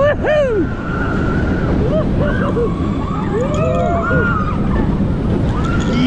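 Mack Rides Stryker roller coaster train at speed, heard from on board: a loud, steady rush of wind on the microphone and wheel rumble on the steel track. Over it, riders scream and whoop in many short rising-and-falling cries.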